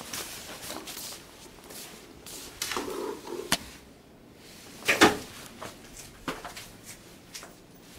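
Scattered clicks and knocks of things being handled in a small room, like drawers or doors being worked; the loudest is a sharp knock about five seconds in.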